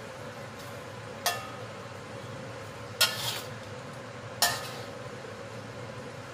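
Spatula stirring vegetables simmering in coconut milk in a frying pan, striking the pan three times with sharp, briefly ringing clinks about a second and a half apart, over a steady low hiss.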